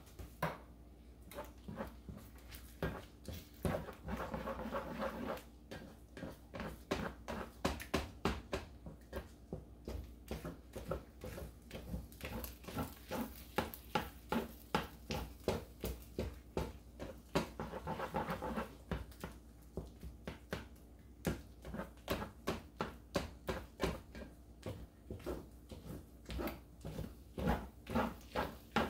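A spoon stirring and scraping fried rice in a skillet: short rhythmic strokes, about two a second, settling into a steady rhythm after the first few seconds.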